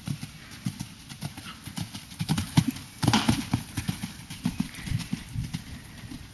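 Hoofbeats of a ridden grey Hanoverian-cross horse on a sand arena, a quick steady rhythm of thuds that is loudest around the middle as the horse passes close.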